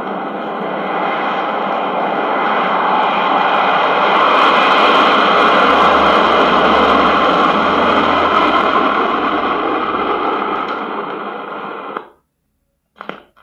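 Recorded jet airplane takeoff played from a vinyl sound-effects record: a loud jet engine rush that swells toward the middle, then cuts off suddenly about twelve seconds in.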